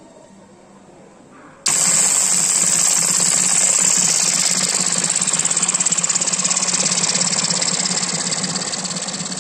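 Fading music, then about a second and a half in a sudden loud, fast rattling noise like a machine that slowly dies away.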